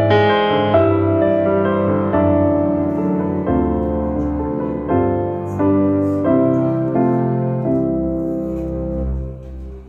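Slow piano music: sustained notes and chords changing every second or so, fading out near the end.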